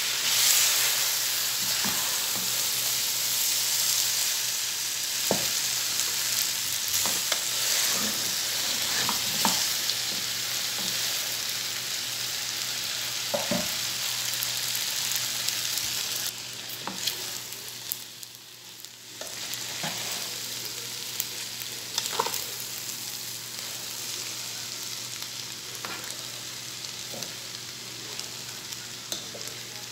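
Spaghetti, chicken and vegetables sizzling in a pot while they are stirred and tossed with a spatula and tongs. Scattered clicks and scrapes come from the utensils against the pot, and the sizzle drops suddenly about halfway through and stays fainter.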